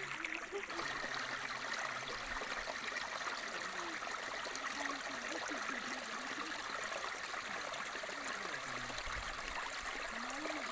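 Steady rushing of flowing water, with faint voices now and then underneath.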